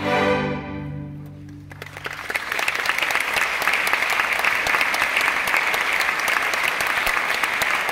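A string orchestra's final chord sounds and dies away over about a second and a half. Audience applause breaks out about two seconds in and goes on steadily.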